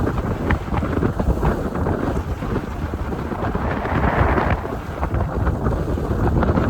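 Wind buffeting a camera microphone during a ski run, a dense, rumbling noise broken by small crackles and knocks; a brighter hiss swells briefly about four seconds in.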